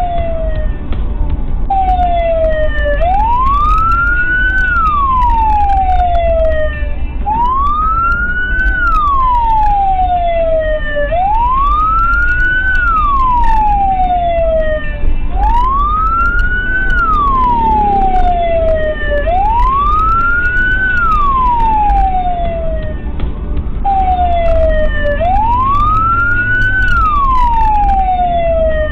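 Emergency vehicle siren wailing, rising quickly and falling slowly in a cycle of about four seconds, over the steady low rumble of the car's engine and tyres.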